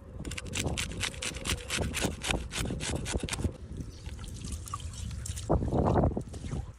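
Water splashing and trickling in quick, irregular splashes, with a louder rush of water about a second before the end.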